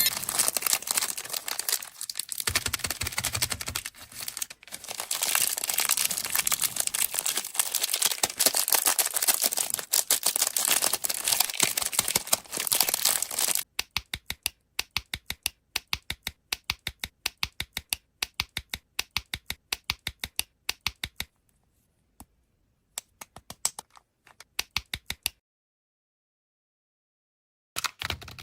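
Plastic candy wrapper crinkling and tearing as it is opened. About halfway through this gives way to a run of sharp, separate clicks, several a second, with dead silence between them, then a couple of seconds of silence.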